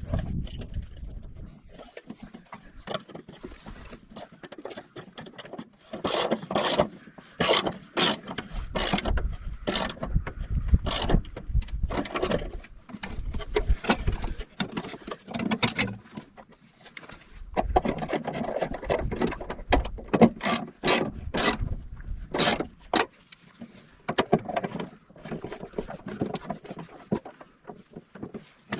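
Irregular clicks, knocks and scrapes of hand tools and wires being worked into an electrical breaker panel, in clusters with a low rumble at times.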